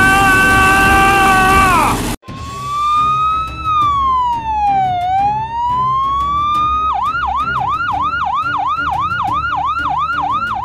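A steady pitched drone over a loud hiss cuts off suddenly about two seconds in. Then an emergency-vehicle siren sounds: one slow wail that falls and rises again, switching about halfway through to a fast yelp of roughly four cycles a second.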